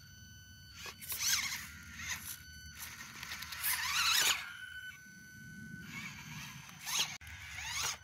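Axial SCX24 1/24-scale rock crawler's Injora 66T brushed motor and small geartrain whining in several short throttle bursts, the pitch rising and falling with the throttle. The longest and loudest burst comes about halfway through.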